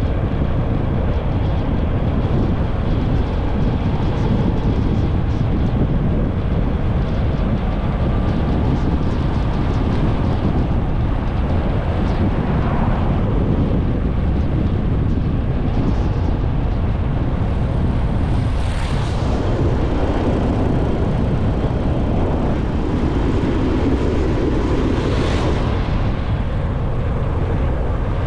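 Motorcycle running under way, its engine buried in heavy wind rushing over the microphone. The mix stays steady and loud, with two brief hissing swells, about two-thirds in and again near the end.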